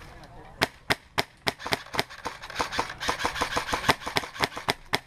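HPA-powered CYMA RPK airsoft gun (Wolverine Inferno Gen 2 engine) firing a long string of sharp shots in quick, irregularly spaced succession, about four a second, starting about half a second in.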